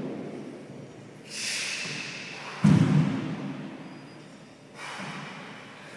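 A man breathing hard in forceful exhalations during gator crawls, with a heavy thud of a body, hand or foot landing on the wooden court floor about two and a half seconds in, which dies away slowly in the hard-walled court.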